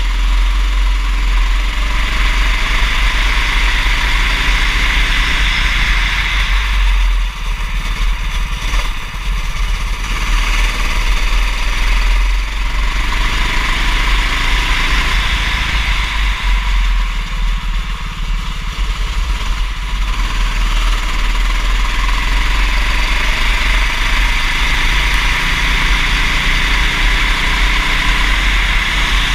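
Racing kart engine revving up and falling back again and again as the kart runs through corners, under a steady hiss and a low, heavy rumble.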